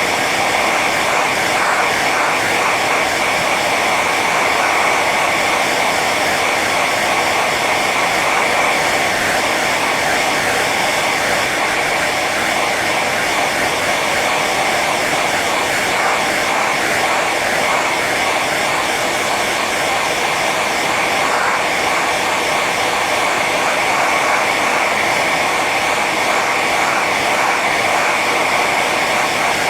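Hair dryer running on its high setting: a steady rush of blown air with a constant high whine from the fan motor.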